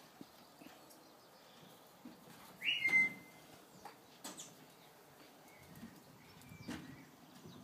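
A single short whistle about three seconds in: a quick upward sweep that settles on a brief held note. A few faint clicks and rustles come before and after it.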